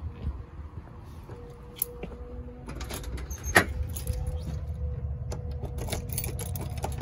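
Keys jangling and door hardware clicking as a front door's knob and lock are worked with a key ring in hand, with one sharp, loud click about three and a half seconds in. A low rumble runs underneath.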